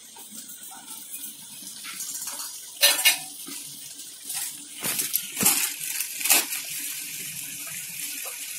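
Chicken bhuna curry, a glass of water just added, sizzling and bubbling in a steel kadai with a steady hiss. A metal ladle clinks and knocks against the pan several times.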